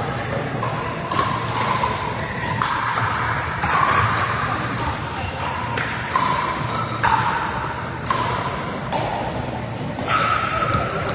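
Pickleball paddles striking a hard plastic pickleball, a series of sharp pops at irregular intervals through a rally, each ringing briefly in a large reverberant sports hall.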